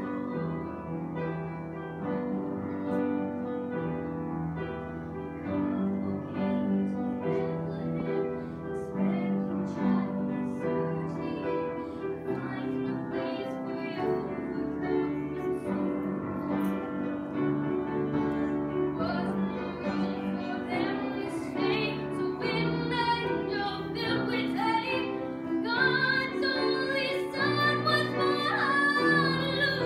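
Upright piano playing a Christmas hymn, with a young woman's solo voice coming in about two-thirds of the way through, singing with vibrato over the chords.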